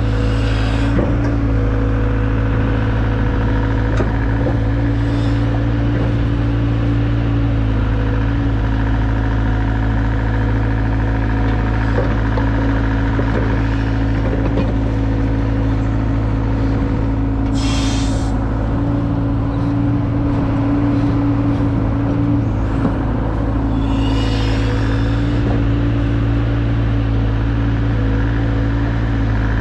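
Mini excavator's diesel engine running steadily under work, its pitch dipping briefly near the middle. Two short bursts of hissing come about 18 and 24 seconds in.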